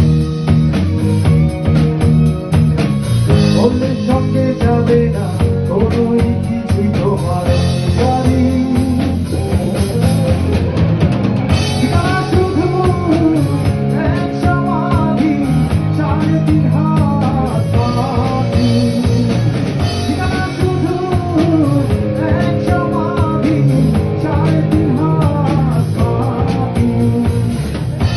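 Rock band playing live: drum kit, bass and guitars, with a singing voice carrying the melody.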